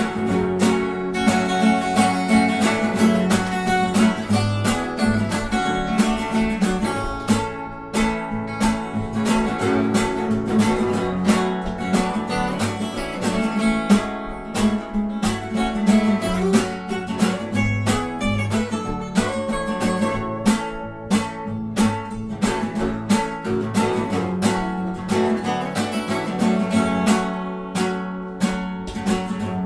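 Acoustic guitar strumming and picking in a steady rhythm, in an instrumental passage of a song with no singing.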